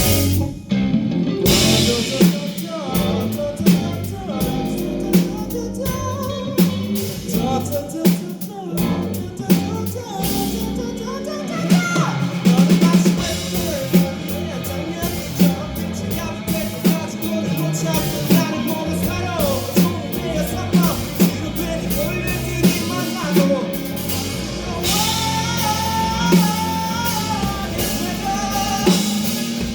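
Live rock band playing: drum kit with regular sharp hits, guitars and singing.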